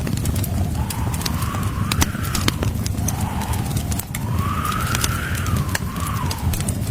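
Blizzard wind howling, its whistle rising and falling in pitch over a steady low rumble, with the sharp pops and snaps of a crackling wood fire scattered throughout.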